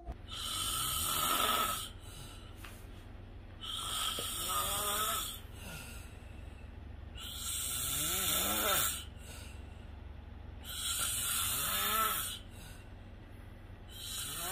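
A sleeping man snoring with his mouth open: long snores, each about a second and a half, coming regularly about every three and a half seconds.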